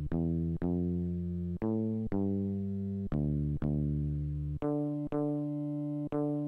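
Commodore Amiga 500 playing a Deluxe Music Construction Set score on its sampled electric bass voice. It is a passacaglia bass line heard alone, with single low notes in a slow three-beat pattern: a long note, then a short one, each measure.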